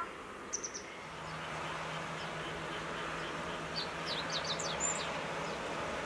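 Small songbird's high, short chirps: three quick notes about half a second in, then a rapid run of about eight notes around four to five seconds in. Underneath runs a steady hiss with a low steady hum.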